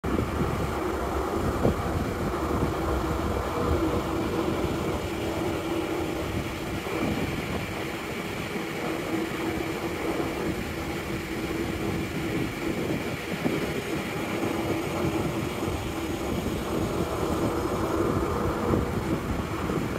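Steady rumble of a cargo ship under way, its machinery droning on one constant tone over the rush of churning wake water.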